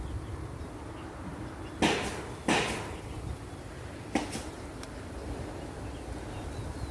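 Two short splashes in water about two seconds in, less than a second apart, then a sharp click a couple of seconds later, over a low rumble of wind on the microphone.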